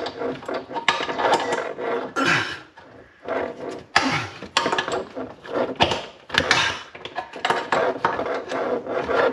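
Adjustable spanner clinking, knocking and scraping against the old kitchen tap's fixing nut and the pipework up under the sink, in irregular bursts as it is worked by hand to loosen the nut.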